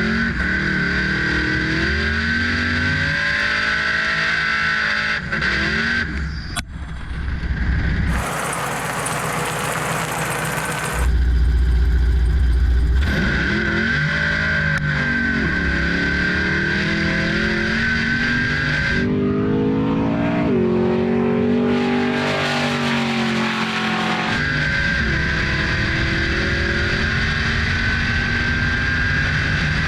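Supercharged LSA V8 of a drag-racing VL Commodore revving and running hard, its pitch rising and falling again and again under a steady high whine. A loud burst of noise breaks in about a third of the way through.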